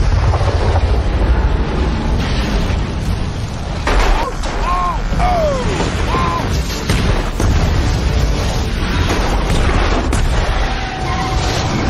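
Film sound mix of explosions: a dense, continuous low rumble of blasts and fireballs. A few short wavering tones sound about four to six seconds in.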